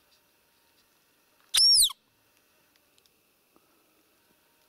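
A hand-blown roe deer call (a squeaker) giving one short, high squeak that swoops up and falls away, about one and a half seconds in. It imitates a roe doe's squeak to draw in a rutting roebuck.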